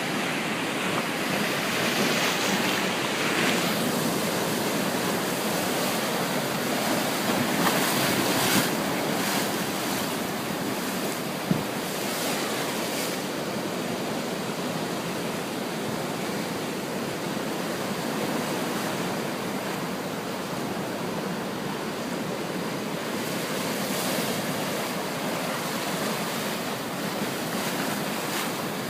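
Ocean surf washing continuously onto the shore, a steady rushing wash that swells a little louder a few times in the first ten seconds. A single sharp click sounds about eleven seconds in.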